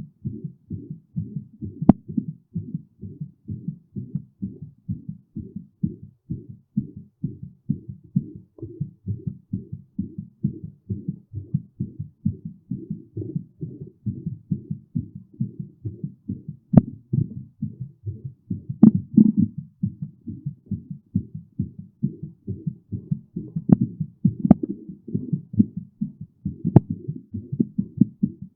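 Human heartbeat picked up close against the chest, a fast, even run of low lub-dub thumps, with a few sharp clicks scattered through it.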